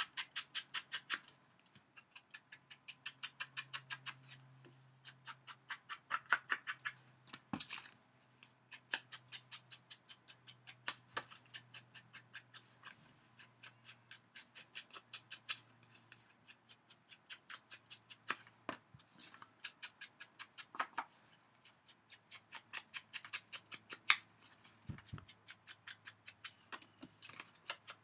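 Chalk ink edger rubbed along the edges of cut paper pieces in quick runs of short, scratchy strokes, inking them. A few louder taps stand out among the strokes.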